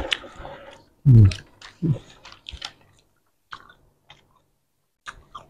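Close-miked chewing of roti canai, with wet mouth clicks scattered throughout. About a second in, and again just before two seconds, come two short low vocal sounds falling in pitch, the first being the loudest sound.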